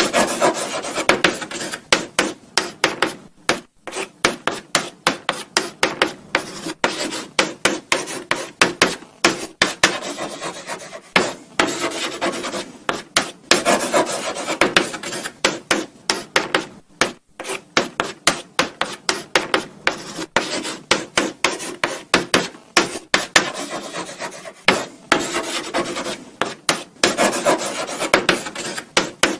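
Chalk writing on a blackboard: a continuous run of short scratchy strokes and taps as letters are written, with brief pauses between words.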